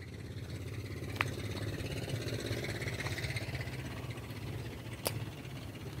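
A steady low mechanical hum that grows a little louder and then eases off, with a sharp click about a second in and another near the end.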